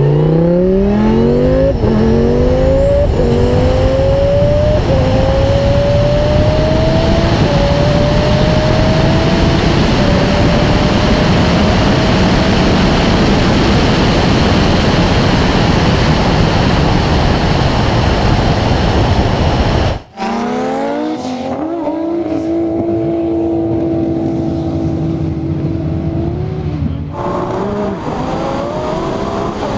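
Tuned Lamborghini's engine at full throttle, heard from a camera mounted on the car: the pitch climbs and drops back at each upshift through several quick gear changes, then gives way to a steady rush of engine and wind at high speed. After an abrupt cut about two-thirds of the way in, another car's engine picks up and pulls hard with a steady drone.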